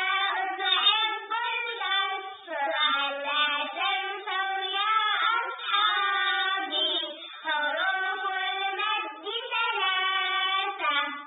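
A child's voice singing a song, with long held notes broken by short pauses.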